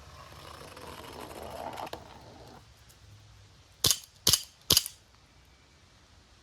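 A clay target rolling and scraping down its run for a couple of seconds. About a second later come three quick, sharp shots, less than half a second apart, from a Colt M45 CQBP CO2 BB pistol.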